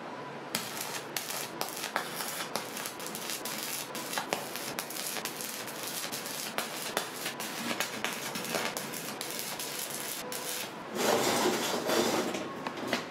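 Stick (arc) welder's electrode arcing against steel, crackling and sputtering with many small sharp pops, as a pipe collar is welded onto a steel cylinder. Near the end the crackle stops and a louder rough noise lasts about a second and a half.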